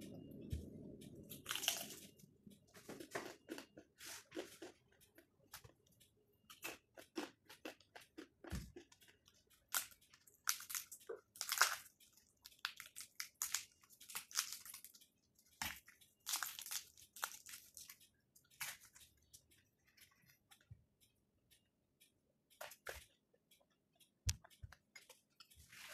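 Crispy za'atar manoushe flatbread being bitten and chewed: irregular crunches, with a few dull knocks.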